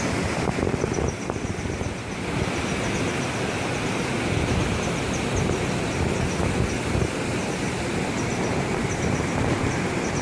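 Mountain stream in high flow rushing over rocks, a steady loud wash of water noise, with faint short high chirps repeating through it.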